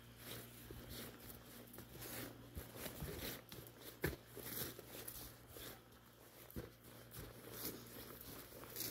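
Rustling and crackling of grass and dry twigs close by, with scattered sharp snaps and clicks; the loudest snap comes about four seconds in.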